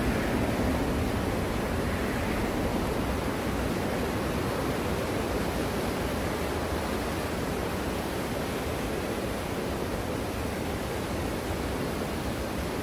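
Small waves breaking and washing onto a sandy beach, a steady rush of surf that is a little louder in the first couple of seconds.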